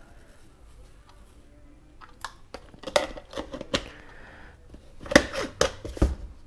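A plastic jar of chia seeds and its screw lid being handled on a kitchen countertop, making sharp clicks and knocks in two clusters, the louder one about five seconds in.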